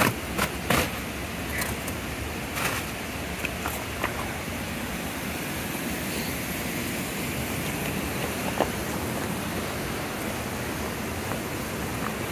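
Footsteps in traction spikes on ice and rock: several sharp crunching steps in the first four seconds and one more about two-thirds through, over a steady rushing noise.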